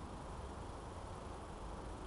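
Steady outdoor woodland ambience: an even hiss with a low rumble and no distinct events.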